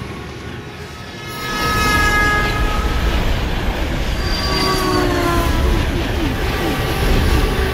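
A train rushes past: a deep rumble swells about a second and a half in, with the horn sounding and high tones sliding down in pitch as it goes by.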